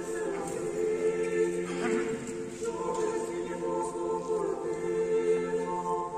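Church choir singing Orthodox memorial chant a cappella in held chords, moving to a new chord a little before halfway through.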